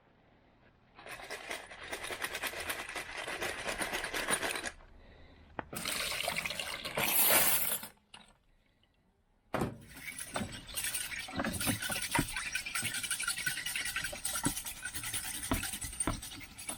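Freshly tumbled metal keys being rinsed in water and handled, clinking against each other. The sound comes in three stretches, broken by two short silent gaps.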